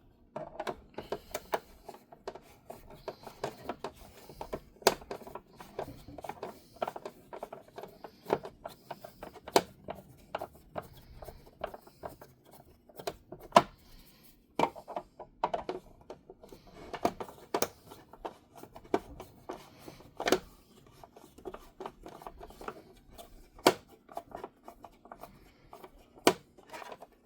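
Irregular small clicks, taps and rubbing of hands handling a plastic toy car while undoing its small screws, with a few sharper knocks spread through.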